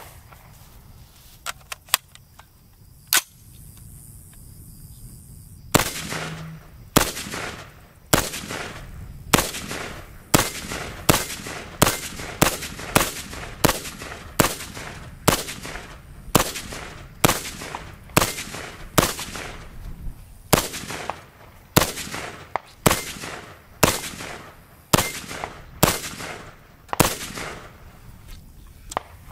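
Daewoo K1A1 5.56 mm rifle fired semi-automatically: one shot about three seconds in, then about thirty shots at a steady pace of one to two a second, each ringing out with a short echo.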